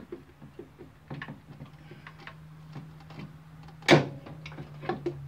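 Metal clicks and taps as a chrome engine side cover is handled and fitted back onto a Yamaha V-Star 1100's engine case, held back against the pull of the rotor magnet, with one sharp clack about four seconds in. A steady low hum runs underneath.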